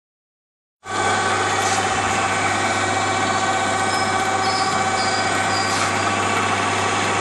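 ZE-8B/2 automatic paper folding machine running: a steady mechanical whir with a constant low hum and a few faint ticks, starting about a second in.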